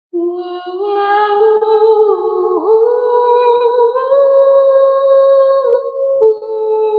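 A woman's voice toning long wordless notes, one held note slowly rising in pitch with a brief dip about two and a half seconds in, then breaking off near six seconds into a new held note.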